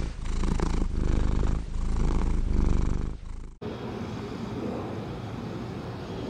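Cat purring close and loud, with brief breaks between breaths. It cuts off suddenly about three and a half seconds in to a steady, quieter low background rumble.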